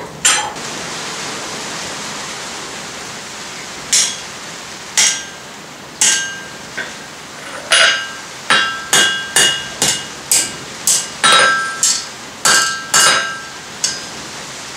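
Hand hammer striking a glowing forge-welded steel bar on an anvil, bending it to test the weld: a few separate blows, then a quicker run of ringing strikes, about two a second. A steady rushing noise from the forge fills the first few seconds, after one sharp clank.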